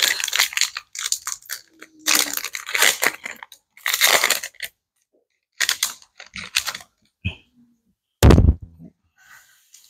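Foil booster-pack wrapper crinkling and tearing open in a series of bursts, followed by one loud bump about eight seconds in.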